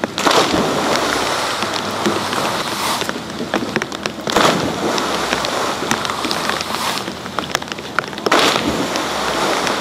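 Steady rushing and churning of aerated water in a ski water-jump pool. Three louder splash surges come about four seconds apart as skiers land in the pool.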